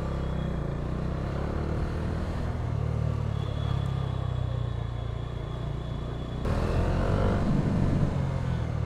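Motorcycle engine running as the bike rides slowly along a city street. About six and a half seconds in, the engine note changes and grows louder as it picks up.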